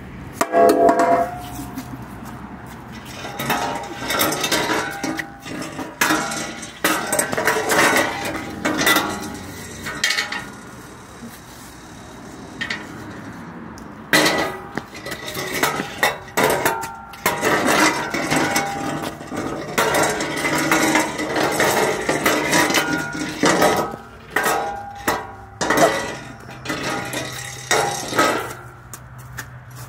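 A chair dragged over a patio in repeated strokes, its legs juddering and scraping in sputtering bursts that sound like diarrhea, with a lull of a few seconds near the middle.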